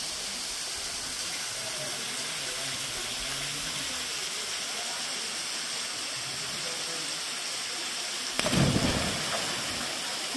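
Steady hiss of rushing water, with a sudden knock near the end.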